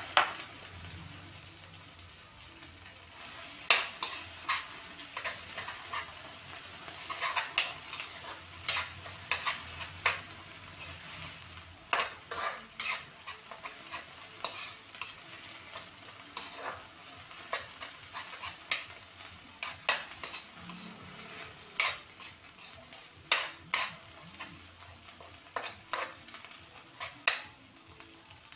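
Ground pork with garlic and onion frying in a wok with a steady sizzle, while a metal spatula scrapes and clinks against the pan in short, irregular strokes.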